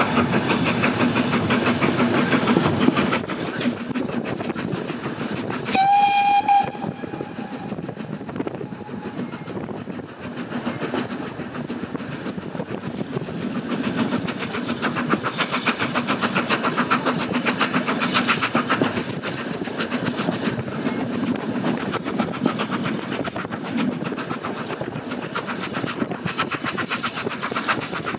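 Heritage railway train running, heard from inside a carriage: a steady rumble and rhythmic clatter of the wheels on the rails. Near six seconds in comes one short high-pitched warning blast from the train.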